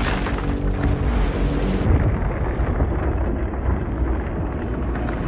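Film sound effects of an explosion: a loud blast with a dense hiss that cuts away suddenly about two seconds in, leaving a heavy low rumble.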